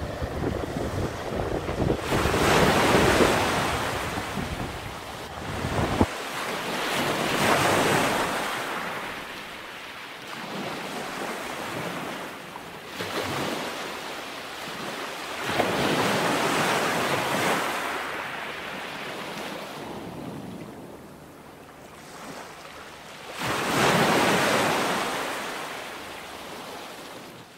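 Ocean surf breaking on a rocky shoreline, coming in surges every few seconds, each swelling and then fading. For the first few seconds wind buffets the microphone with a low rumble.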